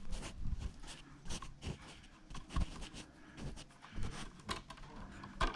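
Irregular light clicks and small rustles of hands working the wiring of a hardwired smoke alarm, taking the wire connectors off the leads, with a sharper knock about two and a half seconds in and another near the end.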